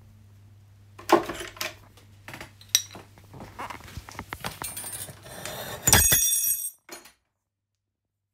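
Gold wire scraping and clicking against a steel drawplate as it is worked by hand, a string of light metallic clinks, then a loud ringing metal clink about six seconds in.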